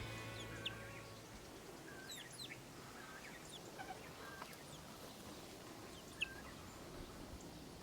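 Faint bird calls, short scattered chirps, as music fades out in the first second; one sharp click about six seconds in.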